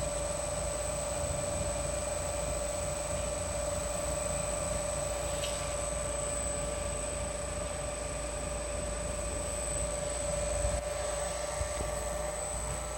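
Electric motor running steadily on a repaired Mitsubishi FR-D740 inverter during a test run: a constant mid-pitched hum with a thin high whine over a low rumble, holding steady throughout.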